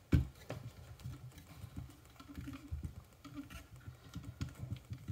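Handling noise: a sharp knock just after the start, then light, irregular clicks and taps as a plastic iFlight Nazgul three-blade propeller is threaded onto a drone motor shaft.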